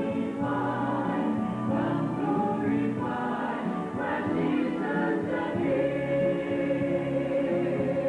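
Choir singing, many voices holding long notes together in a slow hymn-like song.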